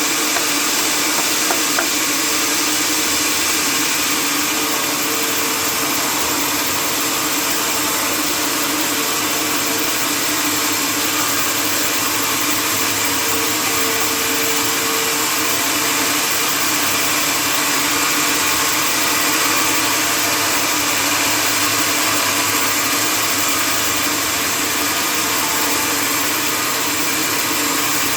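Sawmill machinery running steadily: a loud, even mechanical noise with a steady hum.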